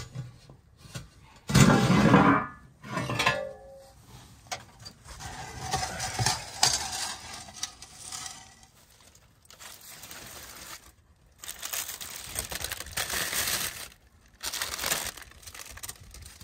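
Sheet-metal door of a wood-fired brick oven pulled open with a loud metal scrape about two seconds in, then a large metal pan scraped out across the oven floor. Later, aluminium foil crinkles and rustles in bursts as it is peeled off the pan.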